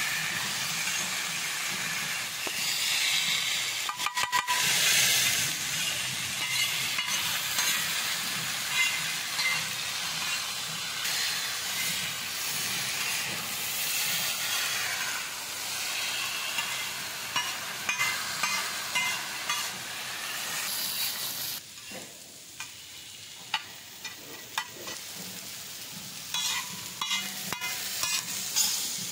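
Food sizzling as it fries in a pan while a spoon or spatula stirs it, with repeated scraping clicks against the pan. The sizzle drops noticeably quieter about three quarters of the way through, while the stirring clicks continue.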